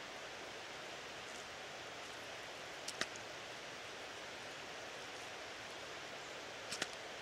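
Faint steady outdoor background hiss, with a few short faint clicks about three seconds in and again near the end.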